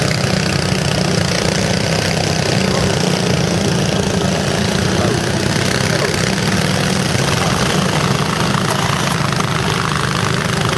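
Several small go-kart engines running together, a loud, steady drone as the karts pull out of the pit lane.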